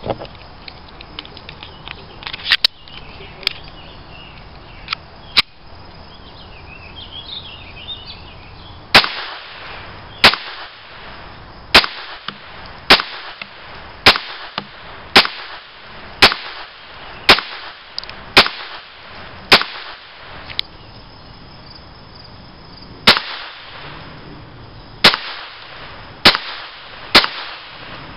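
Walther P22 .22 LR pistol fired in a steady string, about one shot a second: roughly eleven sharp reports starting about nine seconds in, a short pause, then five more near the end. Fainter, sparser shots come before the string.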